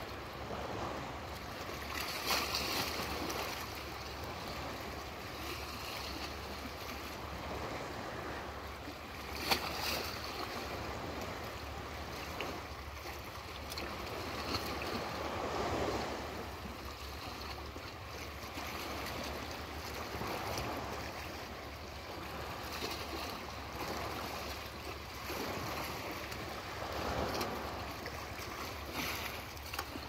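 Small sea waves lapping at the shore, a soft rush of water that swells and fades every five or six seconds, over a steady low rumble. A brief sharp sound stands out about ten seconds in.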